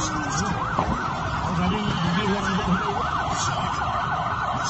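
Emergency vehicle siren in yelp mode, its pitch sweeping rapidly up and down several times a second, over steady background noise.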